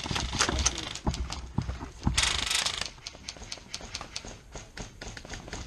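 Airsoft gunfire during a game: irregular sharp clicks several times a second, with a louder rush of noise lasting under a second about two seconds in.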